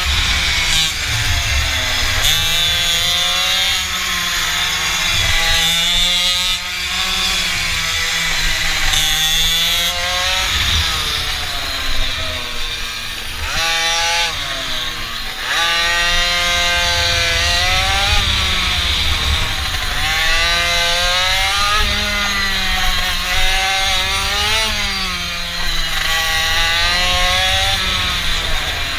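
Mini bike's small engine running hard, its pitch rising and falling over and over as the throttle is opened and eased off, with wind rumbling on the microphone.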